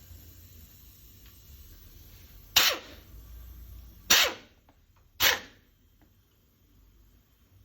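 Three short, loud animal calls, the second about a second and a half after the first and the third about a second after that.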